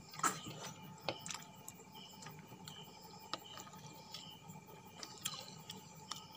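Close-up mouth sounds of eating noodles: wet smacking and chewing clicks at irregular intervals, the loudest just after the start.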